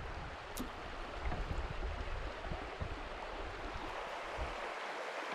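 Steady rush of river water running over a shallow rocky riffle, with a low rumble underneath that drops away about four and a half seconds in.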